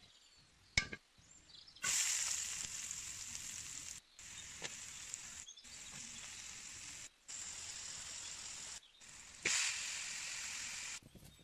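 Food sizzling in oil in a hot wok: chopped onion, garlic, tomato and chili frying, with a steady hiss that cuts out briefly several times. Near the end the sizzle flares louder as raw pork goes into the pan. A single knife chop on the wooden block is heard just before the frying starts.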